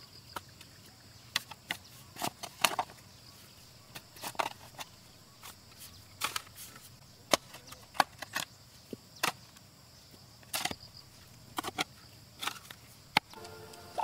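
Irregular sharp knocks and cracks, roughly one or two a second with uneven gaps, over a faint steady high-pitched hum.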